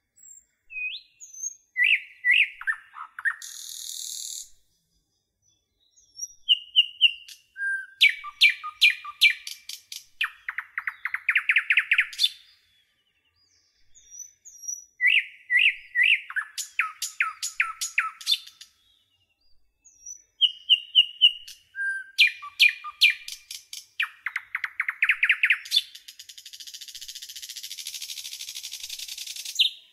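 A songbird sings long phrases of whistled notes and rapid trills, and the same song phrase comes back about every 14 seconds. A brief buzzing hiss about four seconds in and a longer one near the end join it.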